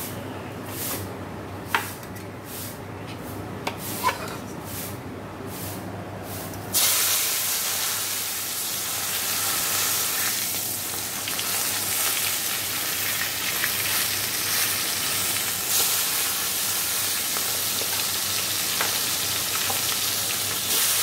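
Koi fish (climbing perch) frying in a kadai of hot oil. After a quieter start with a couple of light clicks, a loud sizzle starts suddenly about seven seconds in, as the fish go into the oil, and keeps up steadily.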